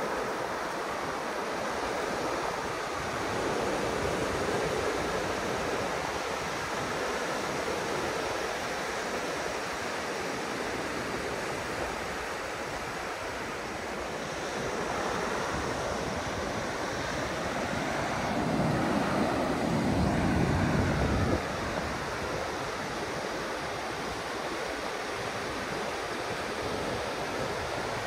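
Ocean surf washing in as a steady hiss that swells and fades. Near the two-thirds mark, wind buffets the microphone with a low rumble that stops abruptly.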